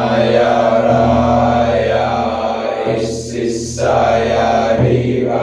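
Low voice chanting long, held mantra-like tones. A new tone starts about three seconds in and another near the end, with a breathy hiss around the first change.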